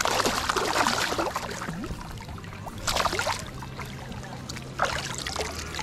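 Shallow water splashing and sloshing in bursts: a loud spell over the first two seconds, then shorter splashes about three seconds and five seconds in.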